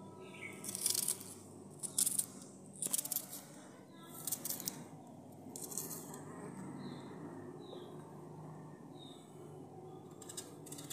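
A knife cutting through a red onion held in the hand, a handful of crisp crunches in the first half, the pieces falling into a clay pot. Small birds chirp a few times in the second half.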